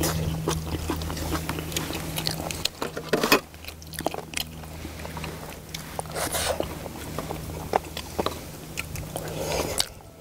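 People chewing and biting into braised spicy chicken, with many short smacks and clicks of eating and chopsticks. A steady low hum runs underneath.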